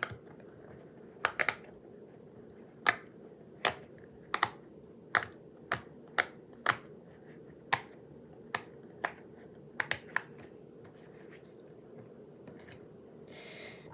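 Silicone pop-it fidget toy's bubbles pressed one by one, about fifteen sharp pops at an uneven pace that stop about ten seconds in.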